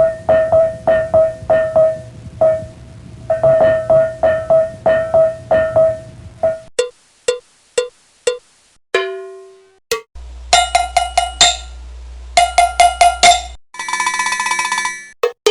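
A run of cowbell clips: rhythmic, metallic cowbell strikes over a steady low bass tone for about six and a half seconds, then four single clanks about half a second apart. Fast cowbell hits over a low drone follow from about ten seconds in, and a short, rapid buzzing rattle comes near the end.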